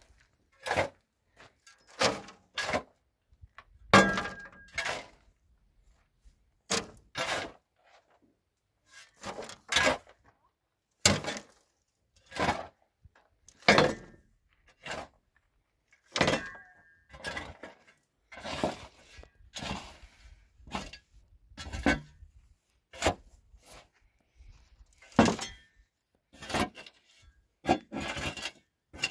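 An irregular series of sharp knocks and thuds, about one a second, some with a brief ringing tone.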